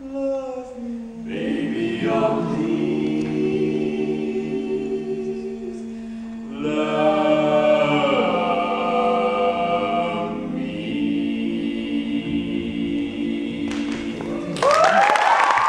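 Barbershop quartet of four male voices singing a cappella in close harmony, holding long sustained chords that swell louder about halfway through. As the final chord ends, near the end, the audience breaks into applause and cheers.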